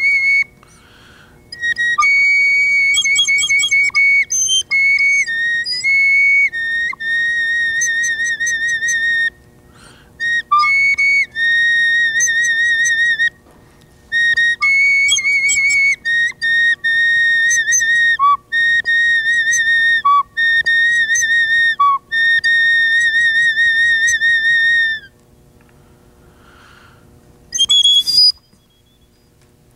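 Native American flute played solo: slow phrases of long held notes with a wavering vibrato, joined by quick ornamental grace notes, with short breaks for breath between phrases. Near the end a longer pause is broken by one short high note.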